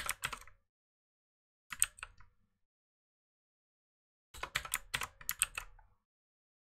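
Typing on a computer keyboard: a quick burst of keystrokes, a couple more about two seconds in, then a longer run of keystrokes from about four and a half to six seconds.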